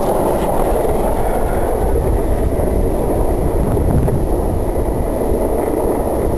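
Longboard wheels rolling fast over pavement, a steady, even rolling noise.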